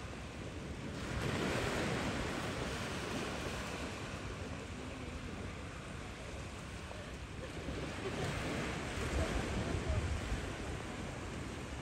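Small waves breaking and washing up a sandy beach, swelling about a second in. Wind rumbles on the microphone near the end.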